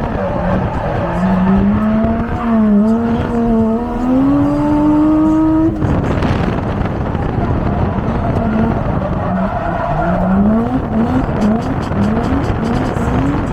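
Drift car's engine revving under hard throttle, its pitch wavering and climbing, with tires squealing. Near the end it gives a quick run of short rising revs, several a second, as the throttle is worked on and off.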